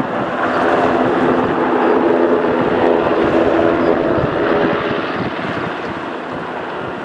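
Sikorsky S-92 helicopter taxiing with its rotors turning: the steady whine of its two turboshaft engines over the rotor noise, getting quieter after about five seconds as it turns away.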